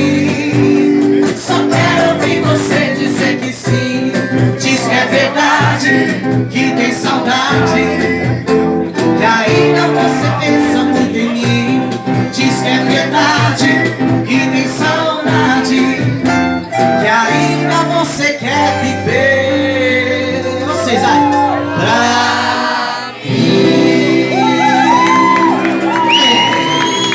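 Live music: a male singer's long, drawn-out melodic lines over guitar and steady held chords, with a brief drop in loudness near the end.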